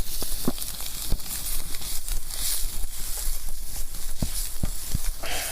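Food frying in a small skillet over a campfire: a steady hiss of sizzling with scattered sharp pops and crackles from the burning wood, over a steady low rumble.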